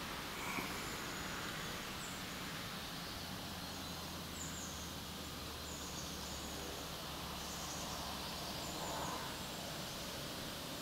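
Quiet outdoor background with a few short, high bird chirps at intervals.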